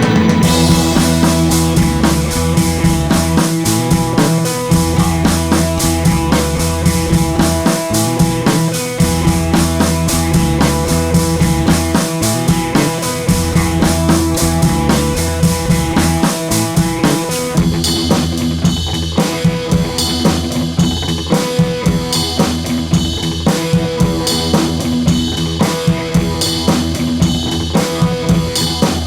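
Background music with a drum kit keeping a steady beat and sustained bass and melody notes; the arrangement thins out about two-thirds of the way in, leaving the drum hits more exposed.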